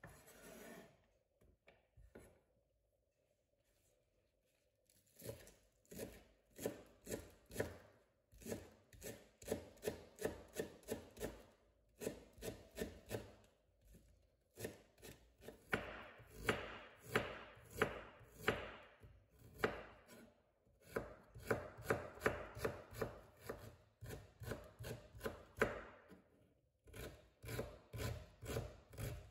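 Chef's knife chopping on a wooden cutting board, slicing spring onion greens and, near the end, ginger. After a few quiet seconds with a couple of light knocks, the blade strikes the board in quick even runs of about three strokes a second, with short pauses between runs.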